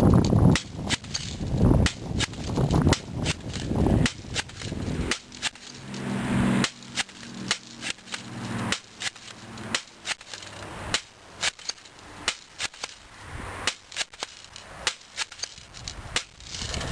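Airsoft shotgun firing and being pumped, a long irregular series of sharp snaps about two a second.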